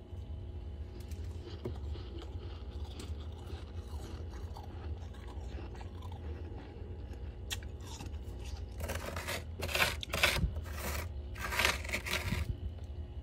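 Freezer frost crunching: faint scratching at first, then about six loud, crisp crunches in quick succession from about two-thirds of the way in. A steady low hum lies underneath.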